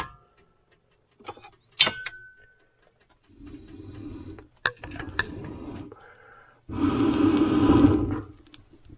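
A pet making three rough, throaty bursts of sound, the last one longest and loudest, after a sharp clink about two seconds in; the owner puts its trouble down to difficulty digesting food.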